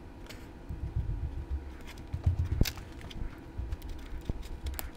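Hands handling small plastic model-locomotive parts and a small screwdriver on a workbench. There is low rubbing and scraping, with light clicks; a sharp click comes about two and a half seconds in and another near the end.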